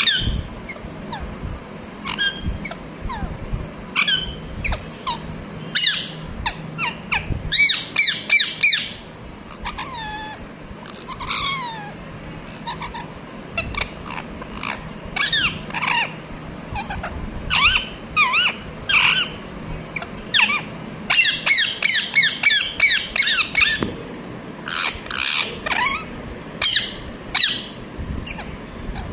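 Pet parrot chirping in runs of short, quick calls that glide up and down in pitch. There are dense bursts of rapid chirps about eight seconds in and again a little past twenty seconds.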